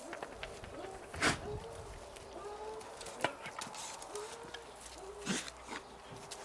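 A dog whining in many short rising-and-falling calls, broken by three short sharp bursts, the loudest about a second in.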